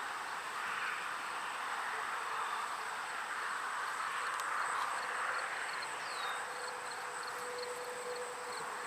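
Steady outdoor background noise, an even rushing hiss, with a few faint high chirps and ticks over it.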